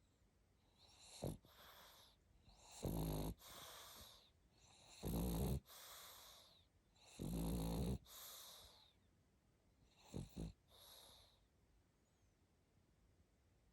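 Pug snoring in its sleep, the noisy breathing typical of its short, flat-faced muzzle. Three loud low snores come about two seconds apart, each followed by a softer airy hiss. Two short, weaker snorts follow near the end.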